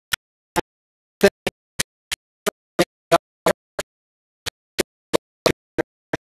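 Ice knocking inside a cocktail shaker as it is shaken: short, sharp knocks about three a second, pausing briefly in the middle.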